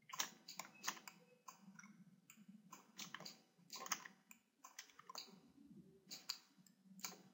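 Faint, irregular clicks of a computer mouse and keyboard, a couple of sharp clicks every second or so.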